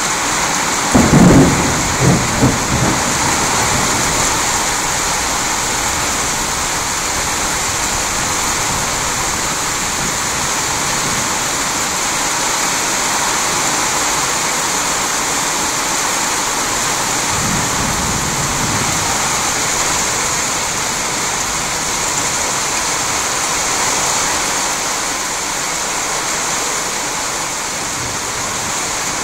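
Steady rain falling in a thunderstorm, with a loud crack and rumble of thunder about a second in and a fainter roll of thunder around the middle.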